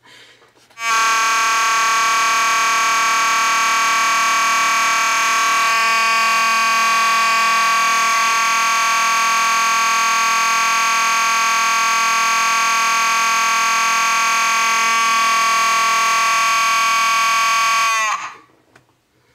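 Fire alarm horn sounding one continuous, steady, a little raspy tone. It starts about a second in and cuts off after about 17 seconds, its pitch sagging slightly as it stops.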